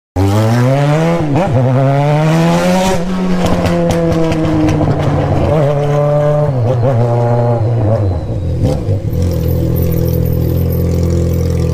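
Yamaha XJ6's inline-four engine accelerating hard: the pitch climbs steeply twice with a gear change between, revs up once more in the middle, then drops to a steady low note as the bike slows.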